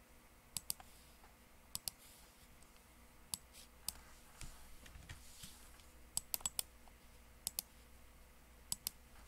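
Computer mouse and keyboard clicks: about a dozen short, sharp clicks, many in quick pairs like double-clicks, with a cluster of four a little past the middle.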